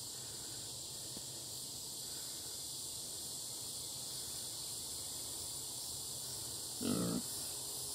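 Steady evening chorus of crickets and other insects. About seven seconds in, a short animal call from the next pen cuts through it once.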